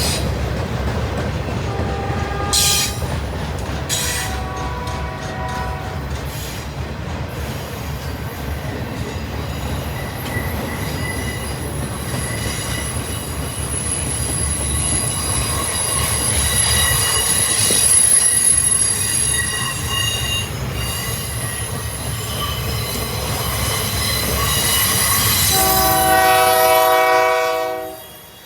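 Continuous-welded-rail freight train rolling past with a steady rumble and high, steady wheel squeal. The locomotive horn sounds a short blast about two seconds in, a longer one around four seconds, and a final blast near the end, after which the sound drops off sharply.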